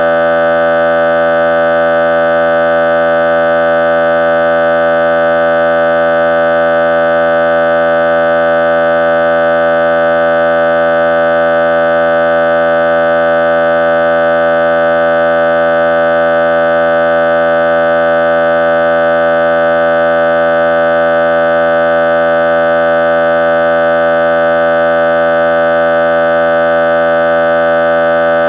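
A loud, steady electronic drone of several tones sounding together, held at one pitch without any change.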